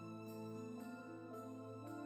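Quiet background music: a melody with a new note about twice a second over a held low tone.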